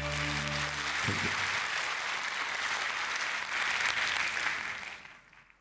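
Audience applauding in a hall after a song, with the last held notes of the accompaniment dying away in about the first second; the clapping fades out near the end.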